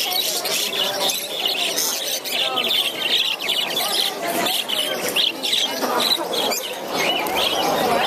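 A cage full of budgerigars chirping and chattering continuously, many birds at once.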